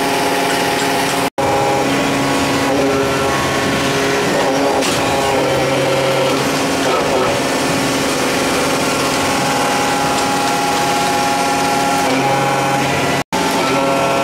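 Alpha 500-ton powder compacting press running as it presses powder metal parts: a loud, steady mechanical drone made of many steady tones, with no distinct stroke beat. The sound drops out for a split second about a second in and again near the end.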